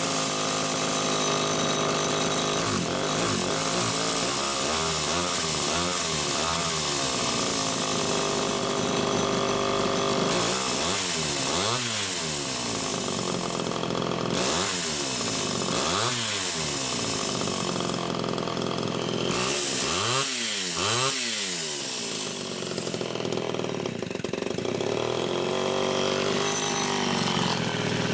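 Homelite Super XL two-stroke chainsaw running, revved up and down several times with its pitch rising and falling, between spells of steadier running. The owner cannot say whether debris in the carburetor or a slightly leaking crank seal is behind how it runs.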